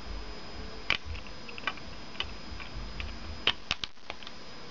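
Sharp plastic clicks from a CD jewel case's center hub as fingers press it to release the disc: scattered single clicks, then three in quick succession about three and a half seconds in.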